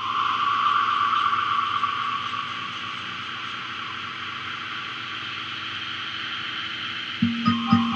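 Steady hiss of static-like noise as the ambient opening of a music track. Near the end a low plucked note enters, repeating about four times a second.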